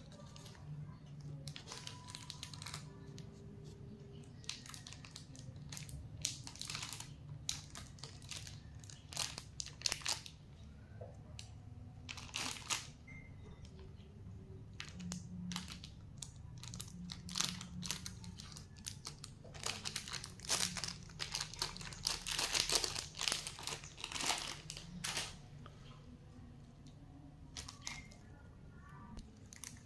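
Plastic lollipop wrappers and packaging crinkling and tearing as they are handled, in irregular crackles that are busiest about two-thirds of the way through.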